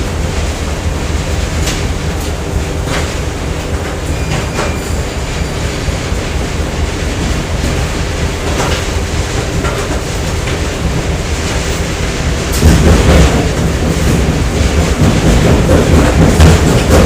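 Factory machinery noise: a steady low mechanical rumble with a faint held hum and scattered clicks and knocks, growing louder about twelve seconds in.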